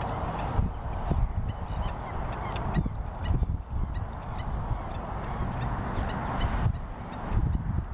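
Black-necked stilt giving a series of short, high, goose-like yipping calls, over a steady low rumble.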